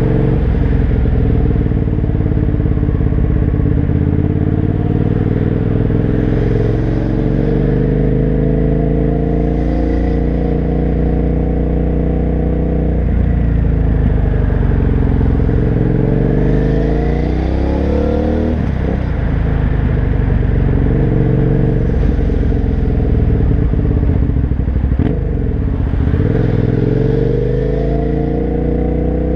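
Suzuki SV650's V-twin engine with an aftermarket Laser exhaust, heard from the rider's helmet with wind on the microphone. The engine note climbs under throttle and falls away several times as the bike follows traffic, with a sharp drop in pitch a little past the middle.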